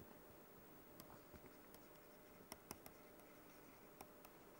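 Near silence: quiet room tone with faint, scattered ticks of a pen tapping and stroking a writing surface as words are handwritten.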